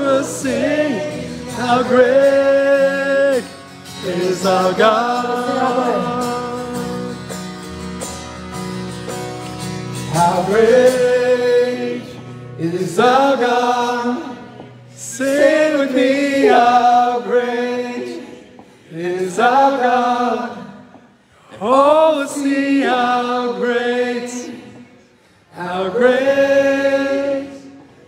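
A man singing a worship song to his own acoustic guitar, in sung phrases of a few seconds with short breaks between them.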